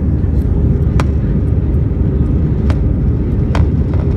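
Jet airliner cabin noise in flight: the steady, loud low rumble of the engines and airflow heard from a window seat, with a few light clicks.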